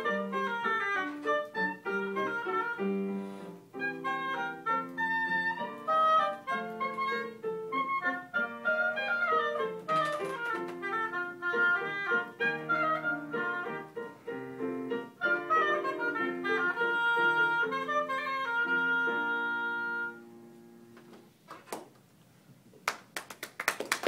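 Oboe with piano accompaniment playing the closing bars of a solo. It ends on a long held note about 20 seconds in. After a short quiet pause, clapping starts near the end.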